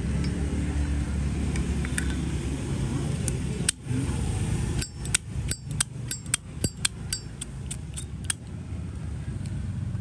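Zippo lighter being snapped open and shut over and over: a run of about a dozen sharp metallic clicks, some with a brief ringing, starting about three seconds in and stopping near the end. A low steady rumble sits underneath.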